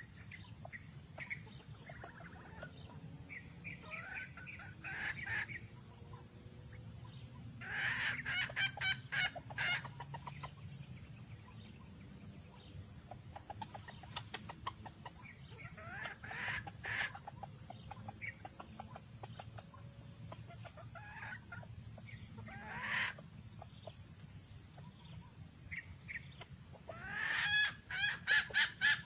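Junglefowl calling and clucking in short bouts spread through, with a quicker run of calls near the end, over a steady high-pitched hum.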